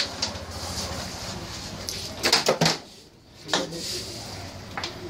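Carrom striker shot: a quick cluster of sharp clacks about two seconds in as the striker hits the carrom men and they knock against each other and the board's frame, then a few single clicks afterwards.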